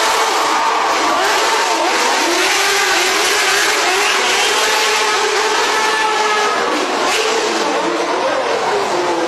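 Quad bike engines revving hard, their pitch rising and falling over a steady loud roar of noise.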